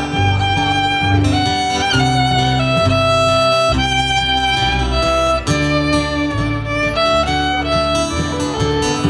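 Fiddle playing a melody of held notes with vibrato over strummed acoustic guitar and bass, an instrumental break in a country-folk song.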